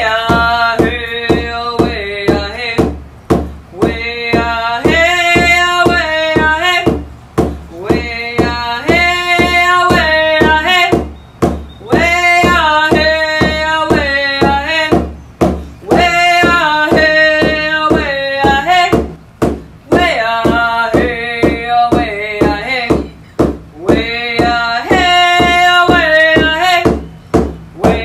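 Background music: a voice singing long, held phrases over a steady drum beat.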